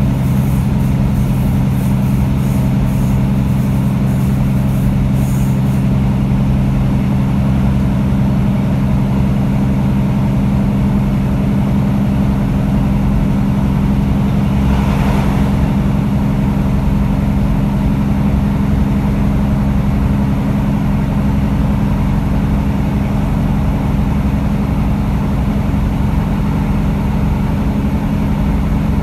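A British Rail Class 150 Sprinter diesel multiple unit heard from inside while under way. Its underfloor Cummins diesel engine holds a steady low drone over the rumble of wheels on track. A brief swell of noise comes about halfway through.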